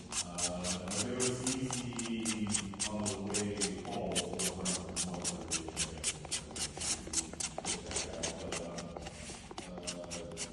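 Rapid, even scraping of polyurethane foam resin and water being stirred by hand in a small container, about five strokes a second, mixing the water in to start the foam reaction. Faint voices murmur underneath.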